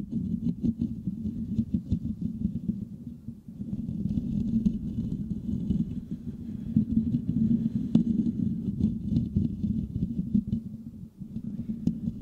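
Fingertips and nails scratching rapidly over the metal mesh grille of a Blue Yeti microphone, heard right at the microphone as a dense, deep crackle. It eases off briefly about three seconds in and again near the end.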